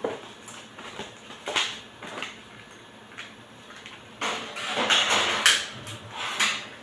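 Knocks and scrapes of a dish being set and shifted on a metal oven rack, with a run of louder handling sounds from about four to five and a half seconds in.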